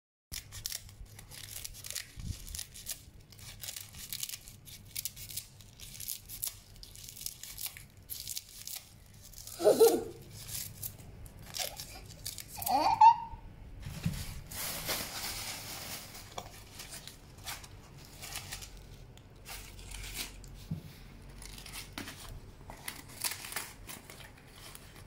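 Scissors snipping through dried lotus leaves: a run of short, crisp cuts with the dry leaves crackling and rustling. Two brief louder tones break in, about ten and thirteen seconds in.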